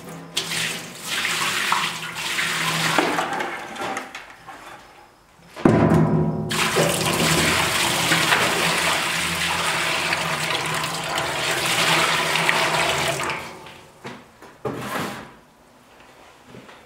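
Rainwater poured from a bucket into a stainless steel mop sink, splashing on the steel bottom while a drain stopper holds it in. It comes in two pours: a shorter one at the start and a louder, longer one from about six seconds in that stops about three seconds before the end.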